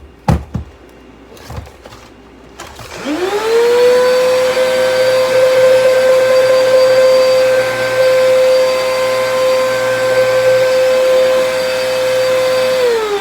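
Vacuum cleaner motor switched on about three seconds in, its whine rising quickly to a steady pitch over a rushing hiss and running evenly, sounding just like a tornado; near the end it is switched off and the pitch falls as the motor winds down. Two sharp knocks come just before it starts.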